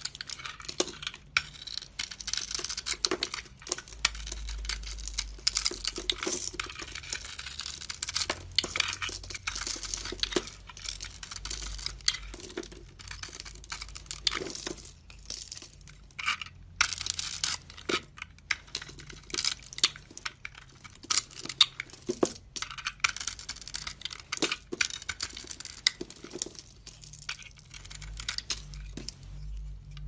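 Snap-off utility-knife blade scraping and carving a bar of soap, its hard glittery coating crackling and flaking off under the blade. Many quick crisp strokes follow one another, with a couple of brief pauses.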